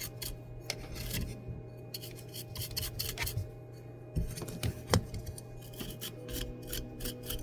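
Quick scratchy strokes of a small tool scraping and brushing around a phone's charging port on its circuit board, as the solder area is cleaned, with a sharp click about five seconds in. A steady electrical hum underneath.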